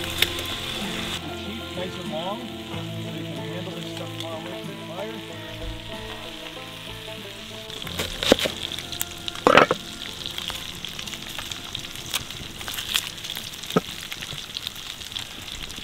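Bacon sizzling in a skillet over a campfire. Soft background music with held chords runs under it and stops about eight seconds in. After that a knife chops irregularly on a wooden cutting board.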